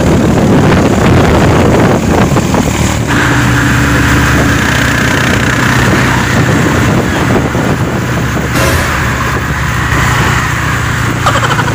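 Engine and road noise from inside a moving open-sided vehicle, with the air rushing past; a steadier engine hum settles in about three seconds in.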